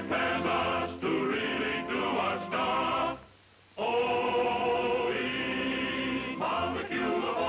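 A choir singing a cheerful song. It breaks off briefly about three seconds in, then comes back on long held notes.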